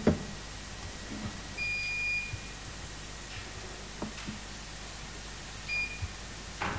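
Electronic voting system beeping as a council vote is held: one long steady beep about one and a half seconds in and a shorter beep near the end. A few faint knocks sound in the room.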